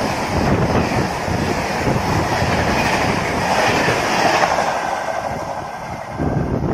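Express train's passenger coaches passing at speed, wheels clattering over the rail joints in a dense rush of noise. The sound eases off after the last coach goes by about four seconds in.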